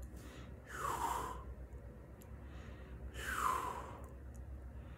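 A man taking two long, heavy breaths close to the microphone, about two and a half seconds apart.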